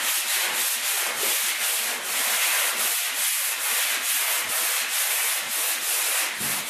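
Sandpaper on a handheld sanding block rasping over dried drywall joint compound in quick, even back-and-forth strokes, smoothing ridges and knife marks from a patched crack.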